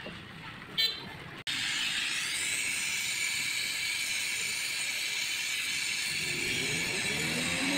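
Brazing torch flame hissing steadily as it heats the copper capillary tube joint to braze it into the freezer's refrigerant line. The hiss starts suddenly about a second and a half in, after a short click.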